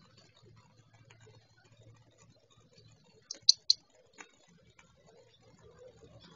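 Three sharp clicks in quick succession a little past halfway, over a faint low hum.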